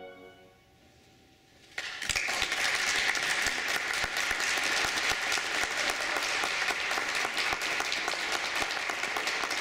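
The final held chord of a brass quintet fades away into the hall, followed by a brief hush. About two seconds in, an audience breaks into steady applause.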